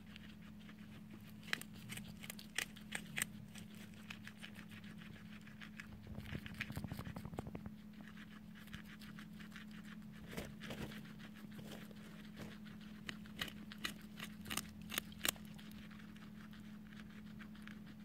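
Guinea pigs crunching and chewing raw chopped vegetables, heard as scattered sharp crunches with a quick run of them near the middle, among light rustling of hay. A faint steady hum runs underneath.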